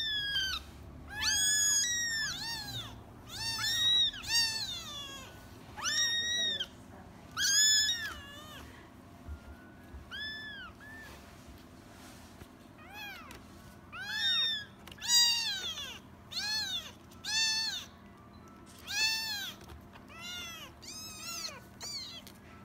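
Young kittens mewing over and over: a string of thin, high-pitched mews, each rising and then falling in pitch. The calls are sparser around the middle.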